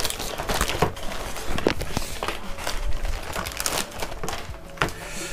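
Clear plastic packaging bag crinkling and rustling in irregular crackles as it is opened and pulled off the gas mask inside, thinning out near the end.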